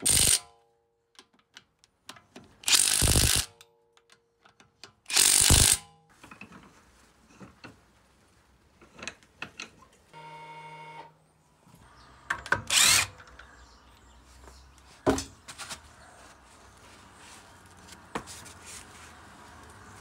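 Cordless power tool run in short bursts of about half a second, spinning out a car's wheel bolts. It runs three times in the first six seconds and again about thirteen seconds in, with quieter clicks of handling between.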